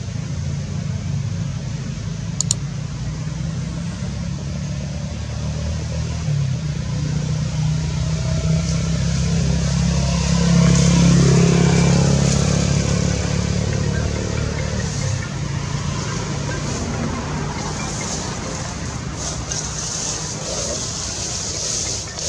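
A motor vehicle's engine with a low steady rumble that swells to its loudest about halfway through as it passes, then eases off again.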